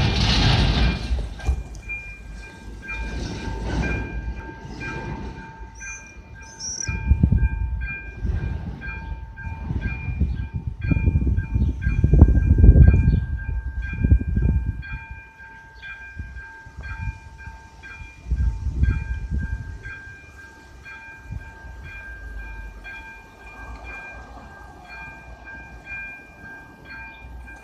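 Railway level crossing warning bell ringing in a steady, evenly repeating electronic rhythm, warning road users that a train is approaching and the barriers are coming down. Bursts of low rumble from passing road traffic come and go over it, loudest about eleven to fourteen seconds in.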